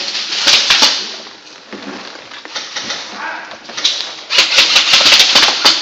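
Airsoft guns firing indoors: a few sharp clicking shots about half a second in, then dense, rapid bursts of shots from about four seconds in.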